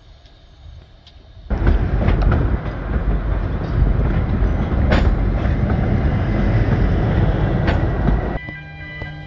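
Narrow-gauge railway carriage running along the track: a loud, steady rumble and rattle of wheels and coach, with a few sharp clanks, starting suddenly about a second and a half in. It gives way to music near the end.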